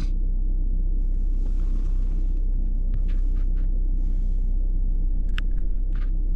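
Car engine running, heard from inside the cabin as a steady low rumble, with a few faint rustles and two or three light clicks in the second half.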